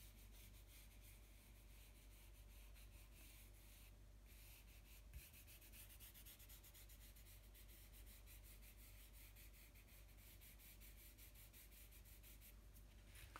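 Faint rubbing of fingertips and palm over drawing paper, wiping charcoal outlines back to a light grey tone, with many soft repeated strokes.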